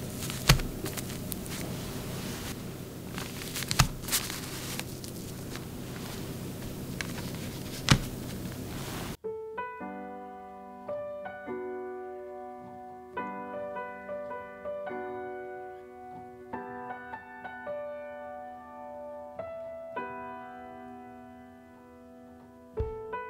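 Steady room hiss with three sharp clicks, then solo piano music that starts abruptly about nine seconds in.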